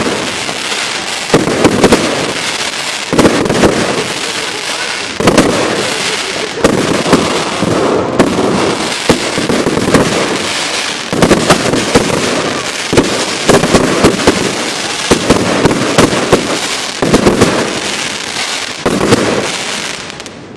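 A dense barrage of fireworks: continuous crackling packed with many sharp bangs and reports, going on without a break and dying down right at the end.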